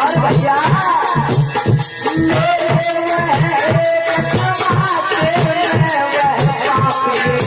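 Folk-style devotional music: a steady drum beat with rattling shaker-like percussion under a wandering melody.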